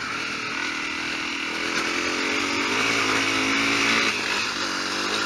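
Honda CRF250L's single-cylinder four-stroke engine running under way on a dirt trail, its pitch climbing over a couple of seconds, dropping briefly about four seconds in, then climbing again.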